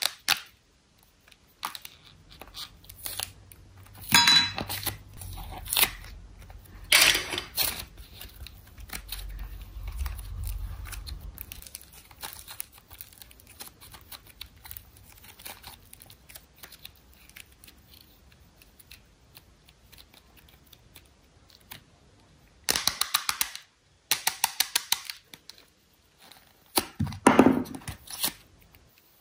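Slime squeezed out of squeeze-toy containers and worked by hand, with bursts of rapid crackling and popping clicks. The bursts come about four seconds in, again around seven, and twice near the end, the last one the loudest, with quieter squishing between.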